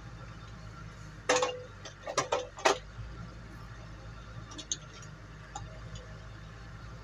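A few sharp metallic clinks and knocks in quick succession, the first with a short ring, followed later by a few faint ticks: metal tools and parts being handled during a wheel change.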